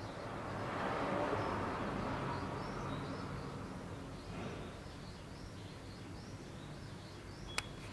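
A broad rushing noise swells and fades over the first four seconds or so, over a steady background of small birds chirping; a single sharp click near the end.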